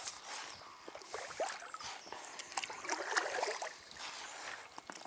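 Kayak paddle dipping and splashing in the river water, with trickling drips and small knocks and clicks, as the inflatable kayak is steered one-handed.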